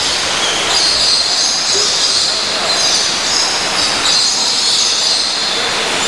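Steady, loud, high-pitched hiss of continuous background noise, with no clear strokes or tones.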